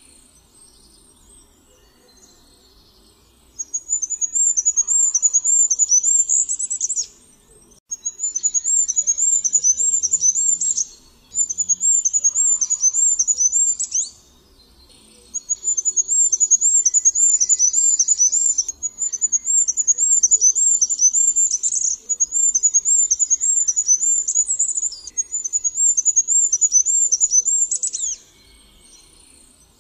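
Goldcrest singing: about five phrases, each a rapid run of very high, thin repeated notes ending in a quick flourish, with short pauses between them. The song starts a few seconds in.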